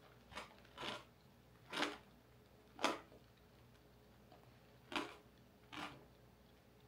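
Chewing tanghulu: about six separate crunches of the hard candied-sugar shell, spaced a second or so apart.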